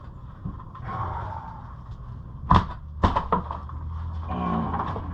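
Demolition work on old framing and mortar: scraping, then two sharp knocks about half a second apart near the middle, followed by a smaller knock.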